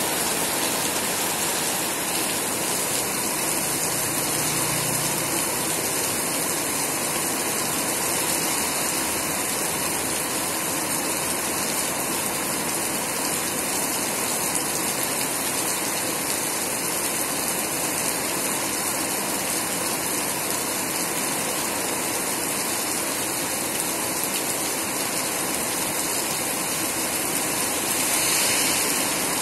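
Heavy typhoon rain pouring steadily, a dense even hiss of water, swelling briefly near the end.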